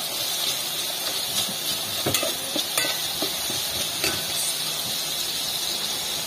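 Garlic and tomatoes sizzling as they fry in an aluminium pot, a steady hiss, while a spoon stirs the sauté and scrapes and taps against the pot in scattered clicks.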